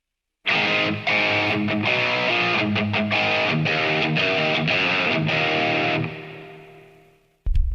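Distorted electric guitar playing a short run of sustained chords for about five seconds, then left to ring and fade out. Near the end comes a short, loud, low thud.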